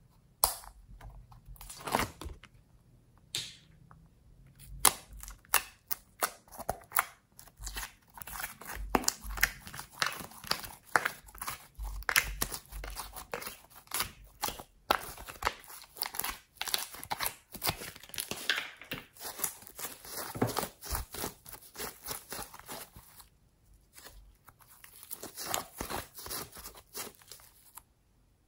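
Slime being peeled out of a clear plastic mould and squeezed by hand, making dense sticky crackles, pops and tearing sounds, with a brief lull late on.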